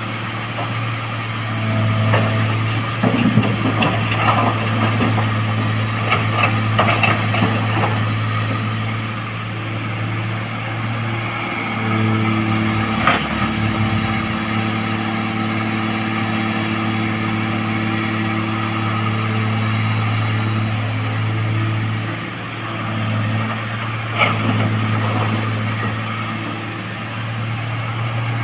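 Heavy-equipment diesel engine running steadily, with several sharp knocks and clanks a few seconds in, another in the middle and one near the end.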